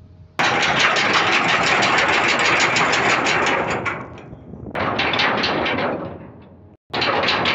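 Ship's anchor chain running out as the anchor is let go: a loud, rapid metallic rattle that starts suddenly, dies away and starts again twice.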